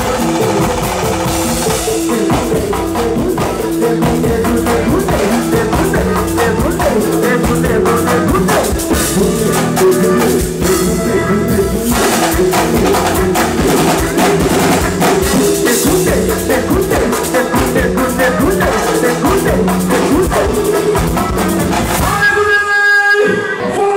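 A live pagode baiano band led by its percussion section: drums, hand drums and drum kit playing a dense, driving groove under keyboard and bass. About 22 seconds in the drums drop out briefly, leaving held keyboard chords, before the band comes back in.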